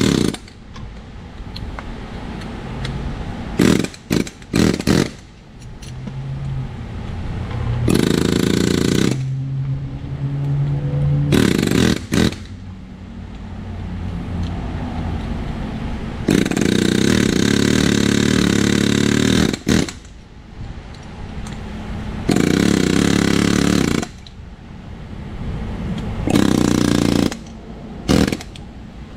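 Snap-on PH3050B pneumatic air hammer fired in about eight bursts, from a fraction of a second to over three seconds long, its bit rattling against the ball joint of a rusty control arm. A steadier lower hum fills the gaps between bursts.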